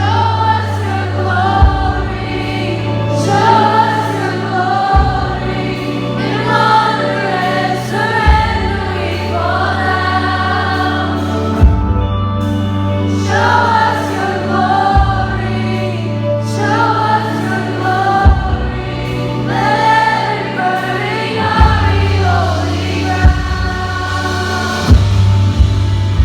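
Music with several voices singing over sustained bass notes that change every couple of seconds.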